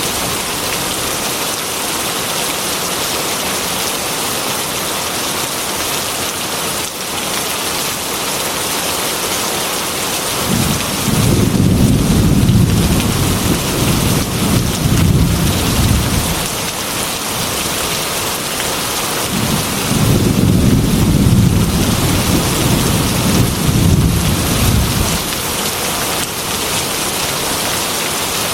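Heavy rain pattering steadily against a glass window, with two long rolls of thunder about halfway through, each rumbling for five or six seconds, the second starting a few seconds after the first dies away.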